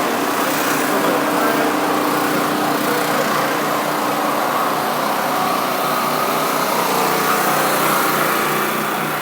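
Portable gasoline generators running steadily with an even engine drone.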